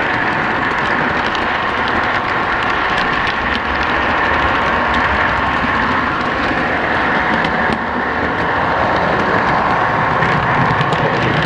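O-gauge model train running along its track: a steady motor and wheel running noise, with scattered sharp clicks as the wheels cross rail joints and switches.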